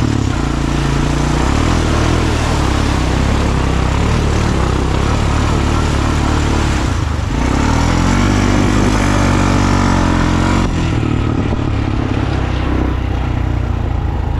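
250cc ATV engine running under throttle on a muddy trail ride, with a steady rushing noise over it. About seven seconds in the revs dip and climb back up, and they ease off a little near the end.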